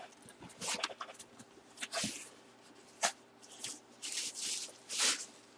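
Short, scattered rustles and clicks of packaging being handled, about five separate noises with quiet between them.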